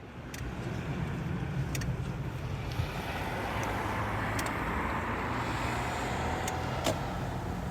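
Steady road noise and engine rumble of a moving car, with a few faint clicks.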